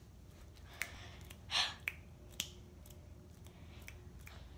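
A few faint, sharp clicks and taps, with a short breathy swish about a second and a half in, over a steady low hum.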